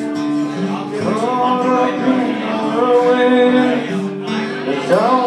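Acoustic guitar played live with a male voice singing, the voice coming in about a second in with long held notes and sliding up into a new phrase near the end.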